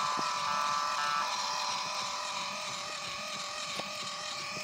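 A Hasbro i-Dog robot toy's small built-in speaker playing a held, buzzy electronic riff note, thin and tinny with no bass.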